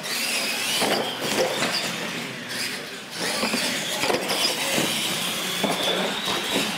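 Radio-controlled monster trucks racing on a concrete floor: a high steady whine of their electric motors and gears over rolling tyre noise, with occasional knocks as they hit ramps and bump along.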